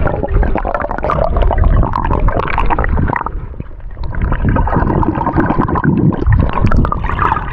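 Swimming-pool water bubbling and sloshing, heard muffled through a camera held underwater: a low rumble with constant crackling bubbles that eases off briefly about three seconds in.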